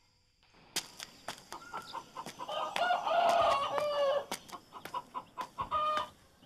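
A rooster crows once, a long call in the middle, with shorter clucking calls near the end, over a run of light regular clicks.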